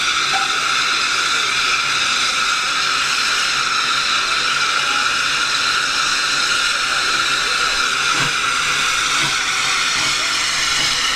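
Steam locomotive hissing steadily and loudly, steam escaping without a break.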